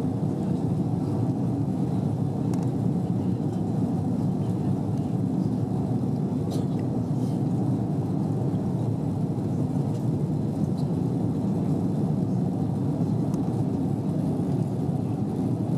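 Airbus A330 cabin noise during the initial climb after takeoff: a steady, even roar of the jet engines and rushing air heard from a window seat.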